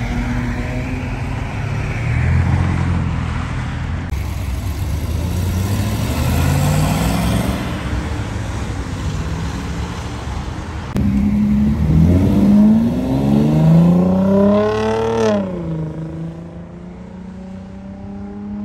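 Car engines accelerating past on the road. First a Dodge Magnum wagon pulls away. Then, about halfway through, a louder C3 Corvette V8 comes in, its pitch rising in several steps as it speeds up through the gears, before settling to a steady drone.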